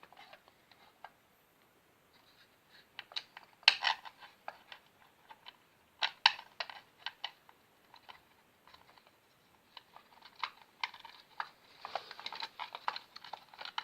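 Irregular small clicks and taps of a screwdriver and fixing screws against a plastic wall socket faceplate as the screws are lined up with the back box holes, busiest about 3 to 4 seconds in and again in the last few seconds.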